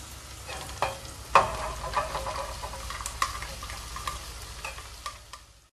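Chopped okra tipped into a pan of shallots, green chillies and curry leaves frying in coconut oil: a steady sizzle with the pieces landing and the ladle clacking against the pan, the loudest a sharp clack about a second and a half in.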